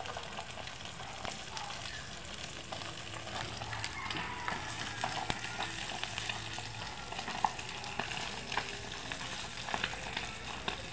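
Dried milkfish (daing na bangus) sizzling in hot oil in a frying pan over a wood fire, a steady hiss full of small spits and pops, with one sharper pop about seven and a half seconds in.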